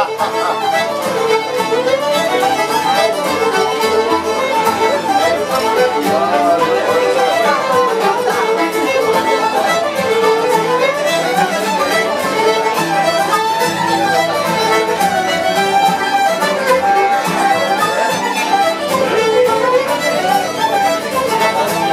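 Fiddles playing a lively traditional session tune in unison, the melody moving quickly up and down without a break, over strummed acoustic guitar.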